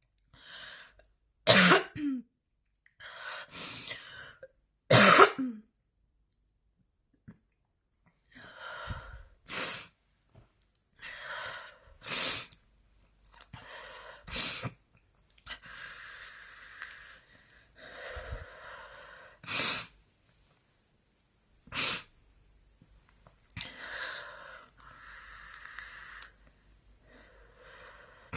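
A woman coughing hard in a persistent coughing fit: repeated sharp, harsh coughs, the loudest two with a voiced gasp at the end. There is a pause of a few seconds about six seconds in, then more coughs mixed with long, heavy breaths.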